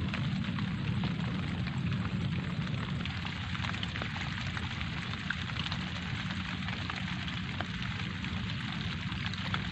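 Light rain falling steadily: an even hiss with scattered fine ticks of single drops, over a steady low rumble.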